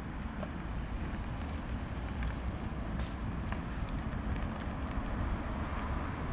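Distant car running hard in tight circles on full steering lock, its tyres losing grip, with a few faint pops about two to five seconds in. Wind rumbles on the microphone.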